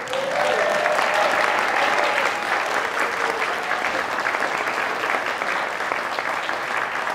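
Audience applauding with dense, steady clapping that starts suddenly, in thanks for a children's drum group. Over the first few seconds a few voices call out with drawn-out cheers.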